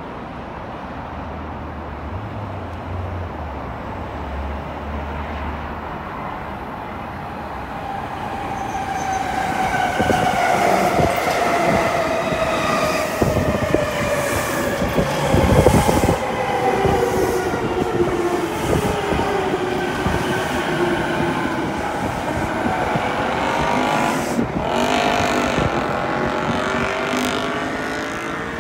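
Rinkai Line 70-000 series electric train pulling into a station and braking: wheel and running noise build up as it passes close by, while the traction motors' whine falls steadily in pitch as it slows. Near the end a wavering whine comes in as it draws to a stop.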